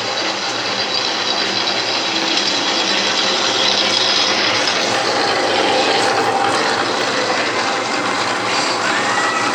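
Milling machine fitted with a hobbing attachment, running steadily with an even mechanical whirr and faint steady whine.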